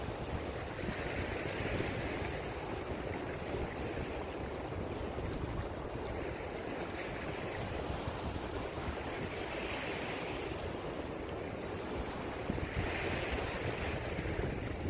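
Wind rumbling on the microphone over the wash of small waves on a shingle beach, the surf swelling softly every few seconds.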